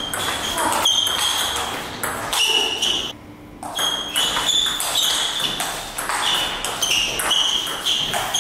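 Table tennis rally: the ball clicking off the rackets and the table about two to three times a second, each hit with a short ringing ping. The hits stop for a moment about three seconds in, then pick up again.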